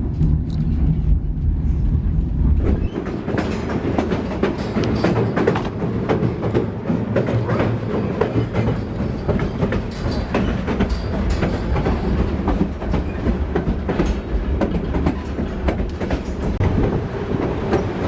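White Pass & Yukon Route narrow-gauge train rolling along, heard from on board: wheels rumbling and clacking over rail joints with a steady rattle of the cars. About three seconds in the deep rumble drops away, leaving the clicking and rattling.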